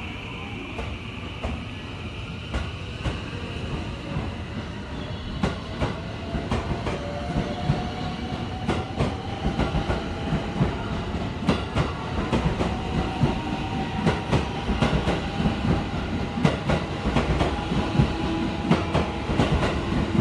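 JR 223 series 2000-subseries electric train pulling away and gathering speed. The traction motors whine slowly upward in pitch while the wheels clack over rail joints and points, the clacks coming faster and louder as the train speeds up.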